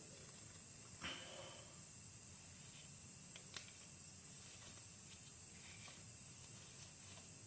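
Quiet steady high-pitched hiss over a low hum, with a faint click about a second in and another about three and a half seconds in.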